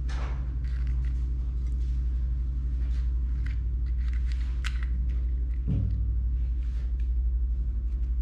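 A steady low hum with faint taps and crackles as fingers handle crisp fried puris, chickpeas and diced potato, and a soft thump a little before six seconds in.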